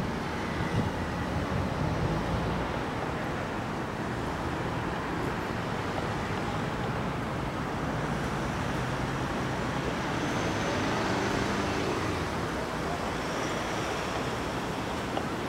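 Steady distant road-traffic noise, a low rumble with a hiss and no distinct events.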